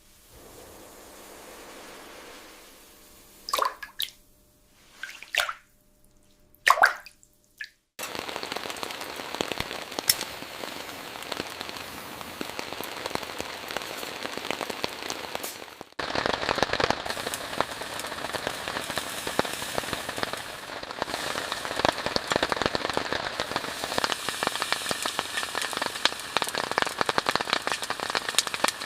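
Rain falling steadily on a surface, thick with the ticks of individual drops. It cuts in about eight seconds in and steps louder about halfway through. Before the rain comes in there is a quieter stretch broken by a few sharp knocks or clinks.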